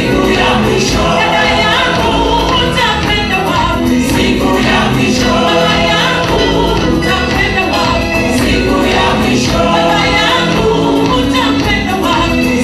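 Live gospel praise singing: a woman leads into a microphone while a choir of women sings and claps along, the music running loud with a steady beat.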